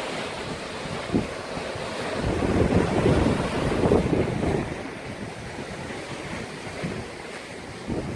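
Wind buffeting the microphone in gusts, a rough low rushing that swells about three seconds in and eases after the middle.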